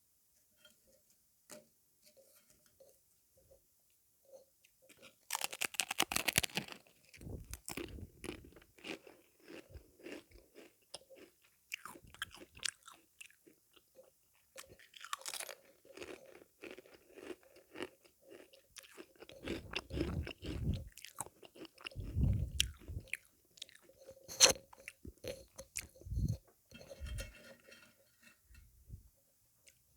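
Close-up eating sounds of a person eating a crunchy sweet. A loud bite about five seconds in is followed by irregular crunching and chewing, with a few heavier bites later on.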